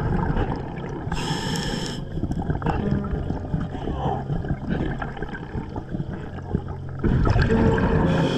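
Scuba diver breathing through a regulator underwater: a sharp hiss of inhaled air about a second in and again near the end, with the low rumble and gurgle of exhaled bubbles around them.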